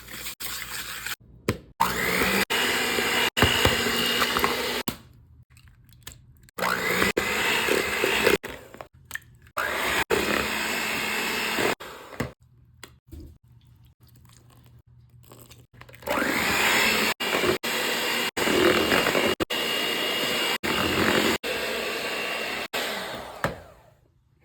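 Electric kitchen mixer running in four separate runs of a few seconds each. Its motor pitch rises as it spins up at the start of each run, and each run stops suddenly.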